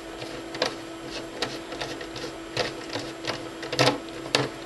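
Irregular small clicks and taps from handling a wire in a screw terminal on a CCTV camera power box, loudest near the end, over a steady low hum.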